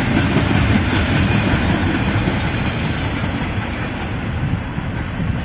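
BNSF container train rolling past, its wheels running over the rails in a steady, dense rumble that eases off slightly toward the end.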